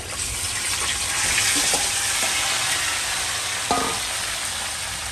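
Yogurt-marinated chicken pieces sizzling as they are scraped into hot oil in a steel kadhai. The hiss swells over the first second or so and then holds steady, with one sharp metal knock of the steel spoon against the pan about three and a half seconds in.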